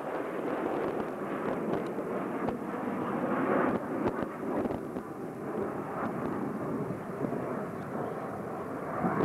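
Jet engine noise from a formation of F-15E and MiG-29 fighter jets flying over: a steady rushing roar, loudest about three and a half seconds in.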